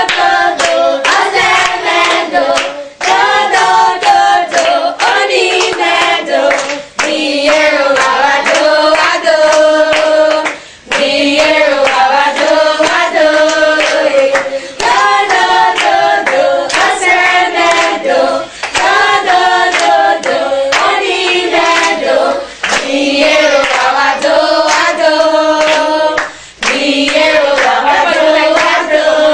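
A group of voices singing together to steady rhythmic hand clapping, in phrases of a few seconds with short breaks between them.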